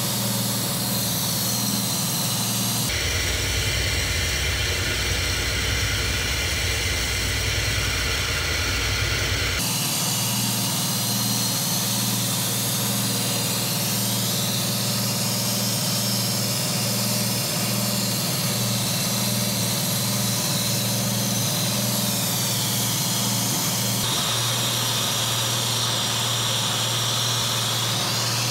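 Toyota Vios engine running steadily at idle. From about three seconds in until about ten seconds, a deeper rumble and more hiss take over before the steady idle returns.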